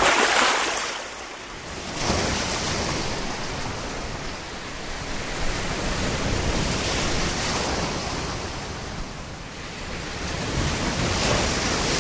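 Sea surf breaking and washing over a shallow shore. The rushing noise swells at the start, again about two seconds in, and once more near the end.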